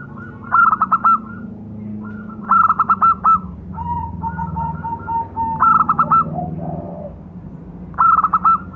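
Zebra dove (perkutut) singing its cooing call: four loud bursts of quick staccato notes, about one every two and a half seconds. Between the second and third bursts comes a softer run of evenly spaced notes.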